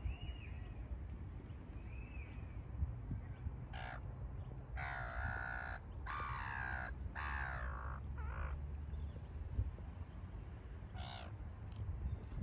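Harsh, caw-like bird calls: a run of several drawn-out calls in the middle and single calls later, with a couple of faint short chirps at the start, over a steady low rumble.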